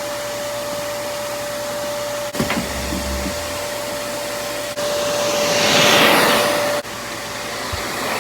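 Vacuum cleaner running over the floor, a steady motor noise with a high whine. A small knock comes about two and a half seconds in, and past the middle it grows louder and hissier for a couple of seconds.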